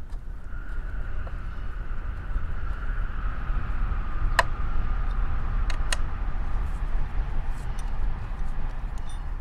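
Drone of a passing engine over a low rumble, swelling toward the middle and fading as its pitch slowly falls. A few sharp metal clicks of a hex key on the radiator guard's bolts around the middle.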